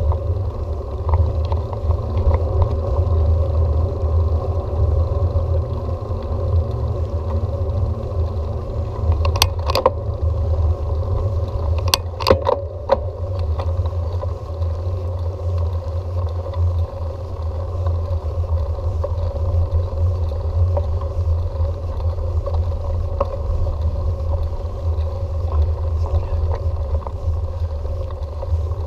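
Steady low rumble of wind and road noise on the microphone of a camera riding along on a bicycle, with a few sharp clicks or rattles about ten and twelve seconds in.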